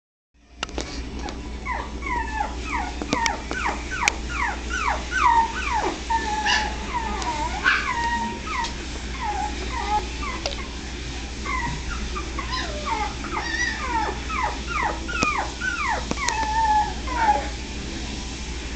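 Puppies whining and yipping: a rapid string of short, high cries, each falling in pitch. The cries thin out about halfway through, pick up again, and stop shortly before the end.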